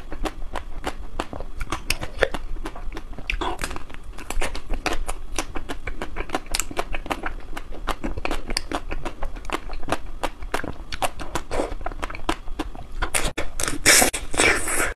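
Close-miked chewing of a crisp-shelled ice cream bar: a rapid run of crackling, crunching clicks as the frozen coating breaks up in the mouth. Near the end there is a louder burst of hissy noise.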